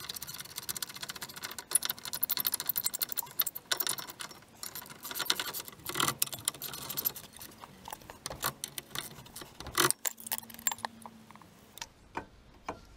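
Metal brake pads and their clips clinking and rattling as they are fitted into a front brake caliper carrier. There is fast jangling for most of the time, with a few sharper clicks, and it thins out near the end.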